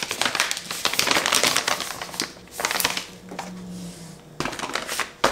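A plastic ingredient bag crinkling and rustling as it is handled for about two seconds, followed by a few scattered light clicks and taps.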